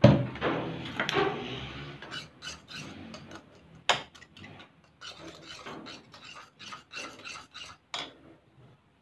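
A metal spoon scraping and stirring PVA glue around a bowl in a run of short, quick strokes. A loud knock comes right at the start, with a sharper clink about four seconds in and another near the end.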